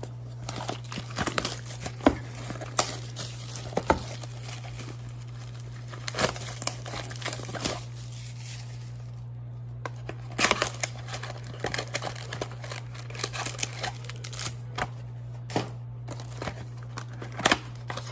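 Plastic wrapping and cardboard packaging of a trading-card hobby box being torn open and crinkled by hand, in irregular crackles and rips that ease off for a moment about halfway through.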